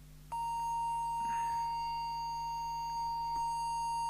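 Steady pure test tone from an audio oscillator, switched on abruptly about a third of a second in and held unchanged, fed into the CB radio as modulation to set its FM deviation.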